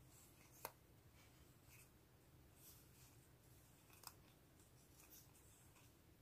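Near silence with faint handling of a stack of die-cut paper stickers: soft rustling as they are fanned through, and two light clicks of the sticker edges, one about a second in and one about four seconds in.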